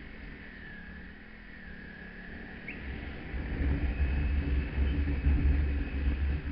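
Motorcycle on the move: the engine runs under a deep wind rumble on the microphone, and both grow louder about halfway in.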